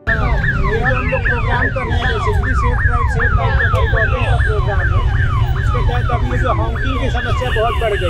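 Electronic siren-like alarm sounding rapid falling sweeps, about three a second, over a loud low rumble of street noise.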